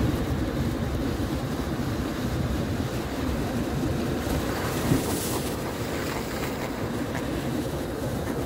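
Surf breaking and washing onto a rocky shore, with wind buffeting the phone's microphone; a short knock about five seconds in.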